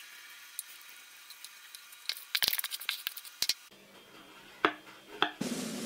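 A metal spoon stirring thick cake batter in a glass bowl, with several sharp clinks of the spoon against the glass about two to three and a half seconds in. Near the end, a knife cuts into a baked cake's crust with a few crisp clicks.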